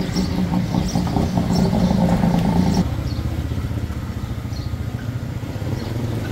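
A steady engine hum that cuts off abruptly about three seconds in, over a constant street rumble with faint clatter.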